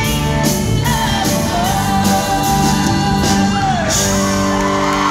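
Live country band with a woman singing lead over drums beating about twice a second; she holds a long note, then near the end the drums stop and the band sustains a held chord.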